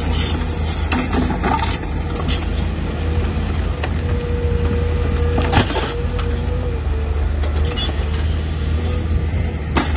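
Large crawler excavator's diesel engine running steadily under load with a constant hydraulic whine, while its ripper tooth tears through layered rock: irregular sharp cracks and clatter of breaking stone, the loudest about halfway through.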